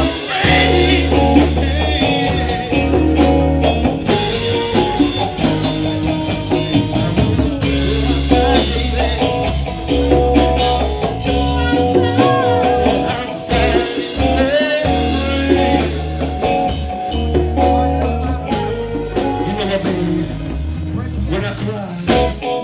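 Live band playing a blues-style song: electric bass holding a strong repeating low line under drum kit, congas and guitar.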